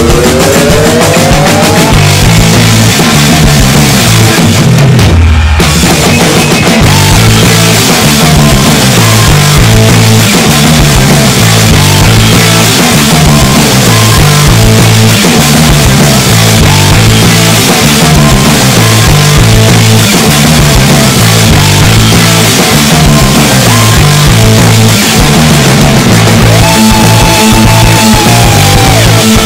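Loud rock music with a driving drum beat and a heavy, repeating bass line.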